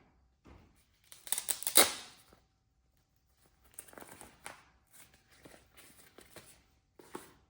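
Hands unpacking a boxed stud finder: a loud burst of packaging handling about a second in, then a string of short rustles and light clicks.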